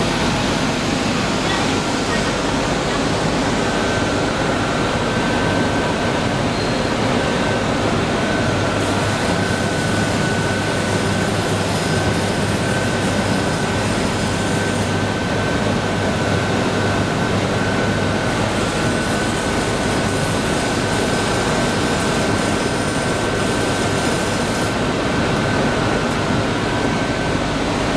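Plastic film printing machine running steadily, its rollers and drives making a constant dense whir. A thin steady high whine joins about four seconds in and stops near the end.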